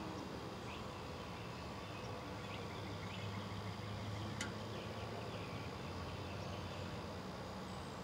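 Outdoor ambience: a steady low hum and hiss with a few faint, short high chirps in the first few seconds and one sharp click about four and a half seconds in.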